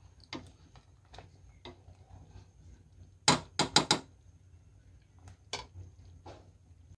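A plastic spoon stirring thick mung bean stew in a stainless steel pot, clicking against the side of the pot now and then, with a quick run of four louder knocks a little past the middle.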